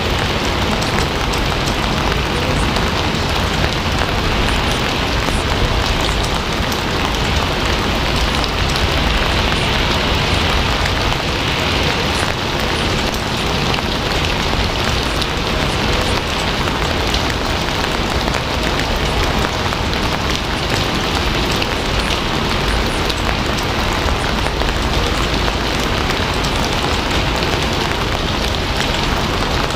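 Steady rain, a dense, even patter of drops that holds unchanged throughout.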